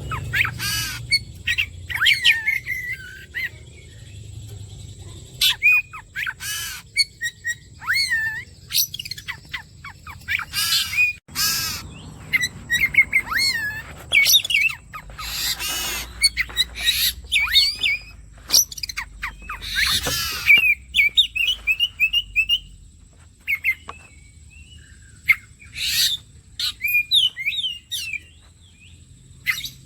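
Oriental magpie-robin (kacer) singing in full voice: quick, wavering whistled phrases broken by short, harsh, scratchy notes about every second or two.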